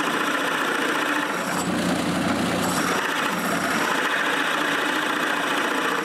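Drill press running, its wide bit boring a shallow hole into a walnut block: a steady motor and cutting noise.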